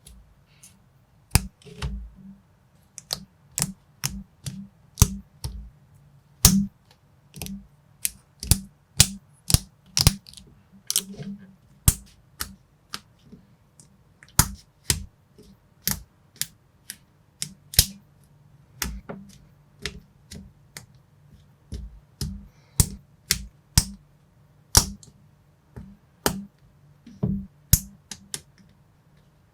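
Lego-compatible plastic bricks clicking as they are snapped together and handled, a run of sharp, irregular clicks about one or two a second over a faint low hum.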